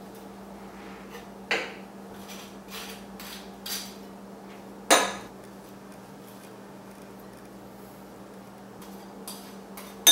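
A table knife clicking and scraping on toast and against a ceramic plate: a few separate sharp clinks, the loudest about five seconds in, over a faint steady hum. A short ringing clink comes at the very end.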